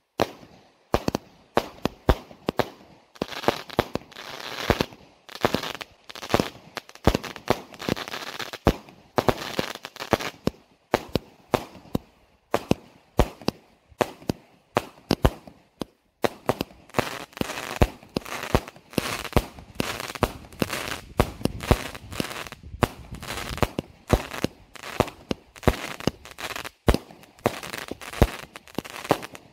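Consumer fireworks battery (cake) firing shot after shot: rapid launch thumps and aerial bursts with crackling, several bangs a second, pausing briefly about 12 and 16 seconds in.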